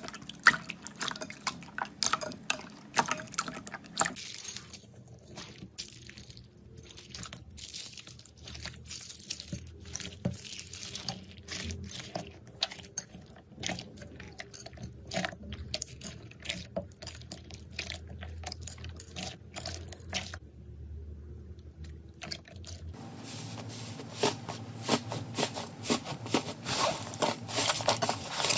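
Slime being squeezed and poked by hand, wet squishing with many small crackling pops. The sound changes abruptly a few times as one slime gives way to another.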